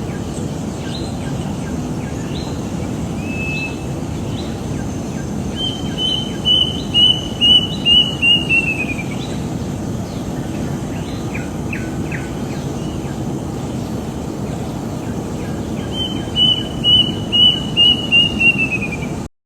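A bird singing a song of about seven quick, evenly spaced notes that drop lower at the end, sung twice, with scattered short chirps between. Steady low rumbling noise runs underneath.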